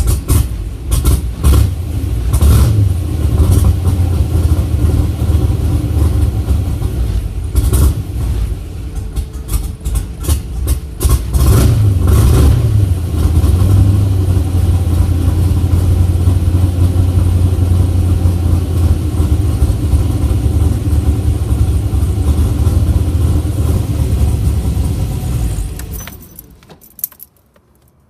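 Chevrolet LS454 big-block V8 idling roughly, its beat uneven and stumbling for the first half, then running steadier until it is shut off about 26 seconds in. A few clicks and a jingle of keys follow near the end.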